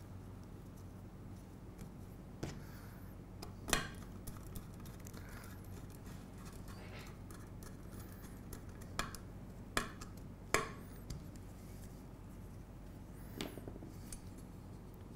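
Small metal clicks and clinks of M3 screws, standoffs and a nut driver against an aluminium C-channel as a chain-tensioner standoff is seated and tightened. About seven sharp ticks are scattered through, the loudest about four seconds in and a cluster between nine and eleven seconds. A low steady hum sits underneath.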